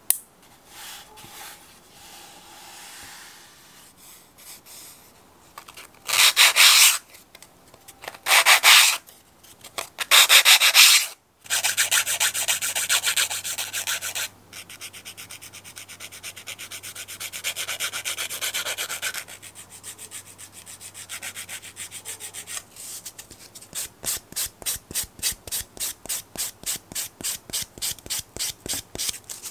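Nail file rasping against fingernail edges in back-and-forth strokes, with three louder long strokes about six to eleven seconds in, then a quicker, regular run of about three strokes a second near the end.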